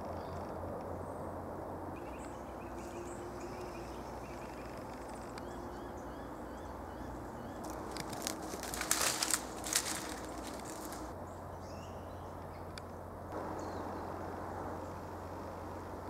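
Outdoor bush ambience: a small bird gives a run of short, high chirps, then about eight seconds in comes a loud burst of crackling and snapping in dry sticks and leaf litter lasting about two seconds.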